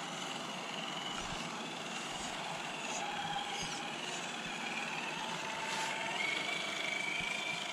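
Radio-controlled scale crawler trucks, a Traxxas TRX-4 Defender among them, driving through loose sand. Their electric motors and gears whine, the pitch rising and falling with the throttle, over a steady hiss.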